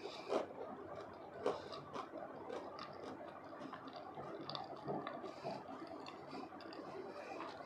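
A person chewing a mouthful of crispy batter-fried potatoes with their mouth closed, making small irregular crunches and mouth noises. Sharper crunches come about half a second and a second and a half in.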